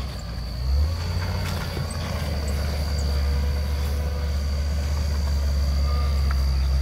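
Land Rover Discovery 2 engine running at low speed as it crawls over a rocky trail, a steady low drone that grows gradually louder as it approaches.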